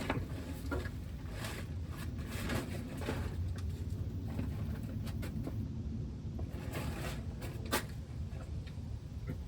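Steady low wind rumble on the microphone, with scattered light clicks and knocks from hands and tools working at a truck's brake line fitting. The sharpest click comes near the end.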